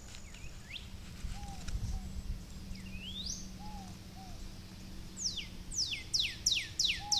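Songbird singing outdoors: a few scattered high chirps, then from about five seconds in a rapid series of loud, steeply falling whistled notes, about three a second. A steady low hum runs underneath.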